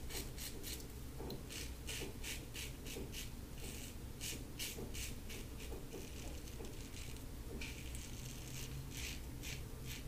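LASSCo BBS-1 stainless steel safety razor with a Gillette Silver Blue blade rasping through two days of stubble on the cheek and neck, across the grain. Short quick strokes, about four a second, come in runs with brief pauses between them.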